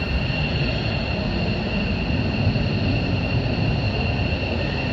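Twin-engine F-15 fighter jet running loud overhead: a steady, heavy rumble with a thin high whine held on top, loud enough to make your chest bounce.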